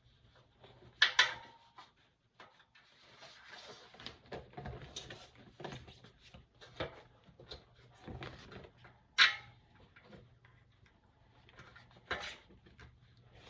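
Handling noise from working a fat bike tire, inner tube and wheel rim by hand: scattered knocks and clicks with rubbing between, and three sharp, louder knocks, about a second in, around nine seconds and around twelve seconds.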